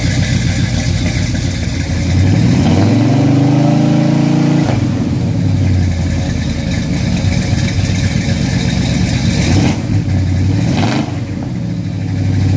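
A 1969 Pontiac GTO's 428 big-block V8 exhaust, through headers and Flowmaster mufflers, heard right at the tailpipe while it warms up after a cold start. It is revved from idle, climbing about two seconds in and held briefly, then dropping back to idle, and it revs up again near the end.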